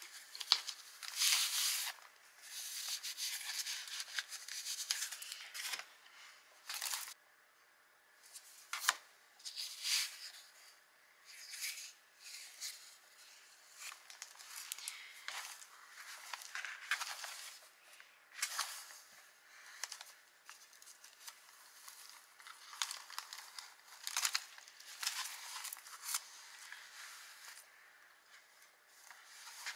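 Pages of a thick handmade junk journal being turned and handled: irregular paper rustles and swishes, some louder than others, with short pauses between them.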